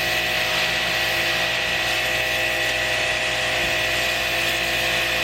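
Small 1500 psi electric pressure washer running steadily, its motor giving a steady high whine over the hiss of the water jet.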